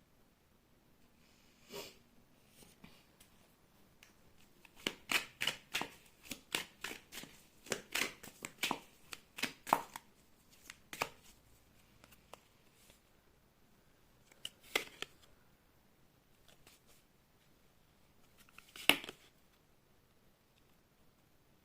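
Tarot cards being handled and shuffled: a quick run of card snaps and taps lasting about five seconds, then a few single taps.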